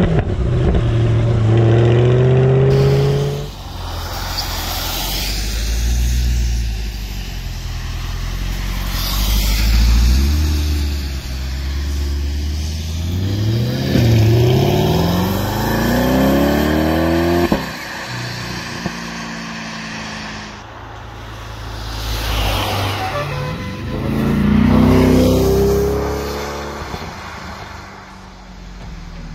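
Chevrolet Corvette C8's 6.2-litre V8 accelerating hard through the gears, its exhaust note climbing in pitch and dropping back at each upshift, in several pulls heard both close at the tailpipes and as the car pulls away.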